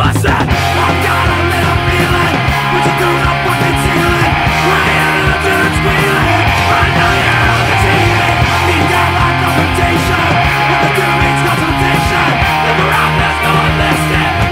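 Melodic punk rock band playing loud and steady, with electric guitar chords over bass and drums.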